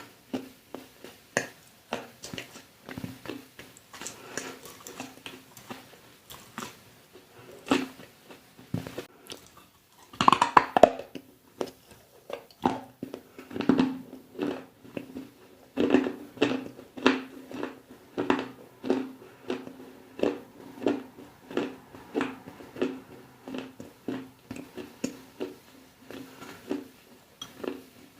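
Close-up crunchy chewing and biting: a long run of sharp, irregular crisp cracks, with a denser burst of crunching about ten seconds in. A low steady hum sits underneath.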